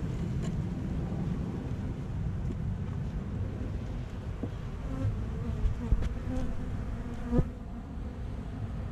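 Honey bees buzzing steadily around an opened hive. Twice in the second half, a metal hive tool knocks sharply against the wooden frames, the second time with a brief squeak as a frame is pried.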